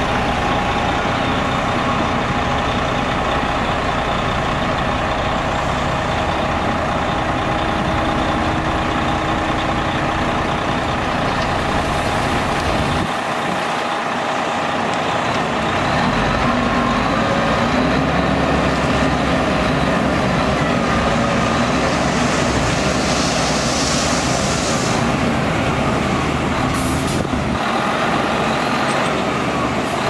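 Twelve-wheel dump truck's diesel engine running while its hydraulic hoist tips the loaded bed, the engine getting louder about halfway through as the bed rises and the dirt starts to slide out.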